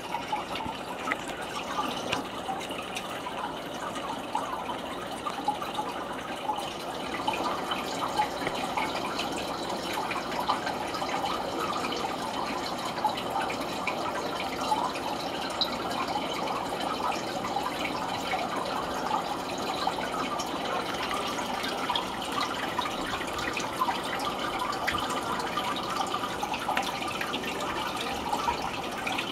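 Water bubbling and trickling steadily, with many small pops and drips.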